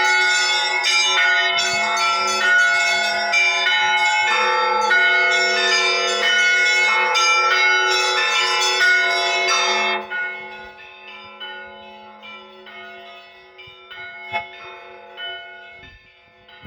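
Russian Orthodox church bells rung together in a dense peal, many bells sounding at once. About ten seconds in the peal breaks off, and the bells ring on, dying away under a few lighter strikes.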